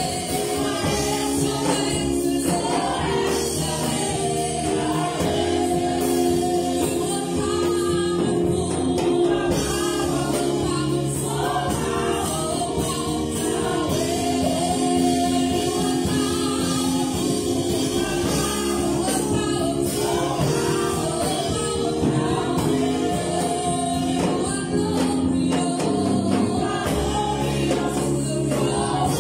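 Gospel worship choir of men's and women's voices singing together, with long held notes.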